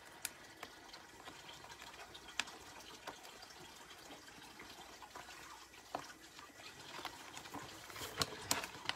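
Faint steady rush of a water tap running at a sink, with a few soft clicks and taps scattered through it, the sharpest near the end.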